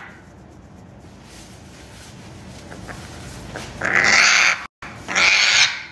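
African grey parrot giving two harsh, raspy calls of under a second each, about four seconds in and again just after, while it is being stroked on the head and body. It is a sign of the bird objecting to the handling.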